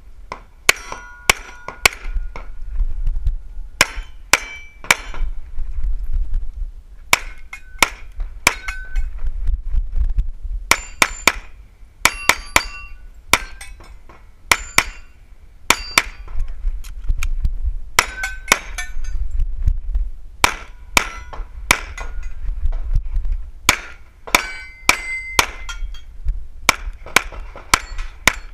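Rapid pistol fire in quick strings of two to four shots, repeated throughout, with many shots followed by the short ringing ping of steel targets being hit.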